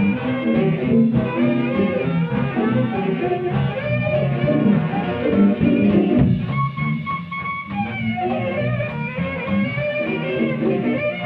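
A jazz big band playing a swing number, recorded live: dense ensemble music with notes moving over a busy low line.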